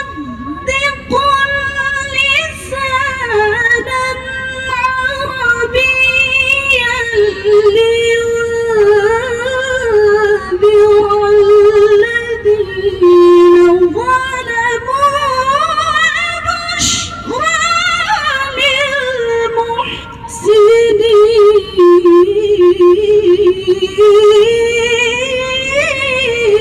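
A woman reciting the Quran in the melodic tilawah style, singing long, heavily ornamented phrases with rapid pitch turns and trills. There is a short break about twenty seconds in.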